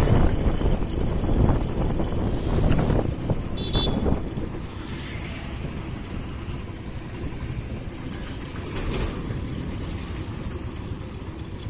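Motorcycle engine and road noise while riding, loudest for about the first four seconds, then dropping to a lower, steady level as the bike eases off.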